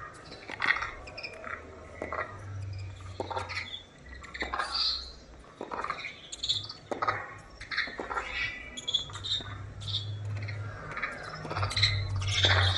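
Tennis rally on a hard court: racket strings striking the ball about once every second and a bit, with sneakers squeaking on the court surface between shots.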